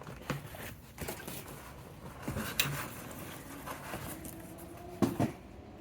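Packaging being handled and opened: rustling with scattered clicks and knocks, and a louder knock about five seconds in.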